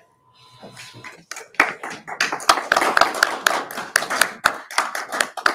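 A small group applauding, the separate claps of a few people audible. It starts faintly and swells about a second in.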